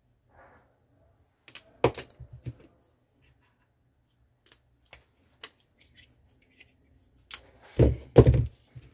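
Hand tools being handled on a workbench: scattered clicks and light knocks as pliers and wire strippers are picked up and worked, with a couple of heavier dull thumps near the end as a tool is set down on the bench.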